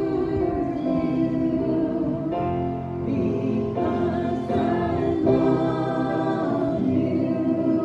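A group of voices singing a gospel hymn together in held, sustained notes.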